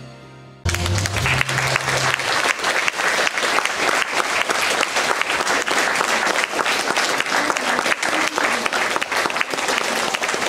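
Audience applauding: clapping starts abruptly under a second in and keeps up steadily, over a fading music track.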